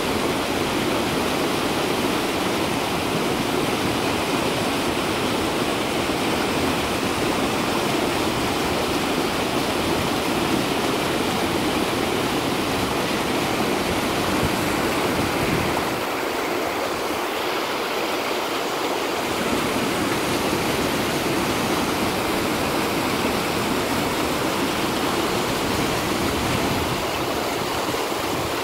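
Rain runoff rushing down a stone-walled channel and tumbling over a small concrete step: a loud, steady rush of water.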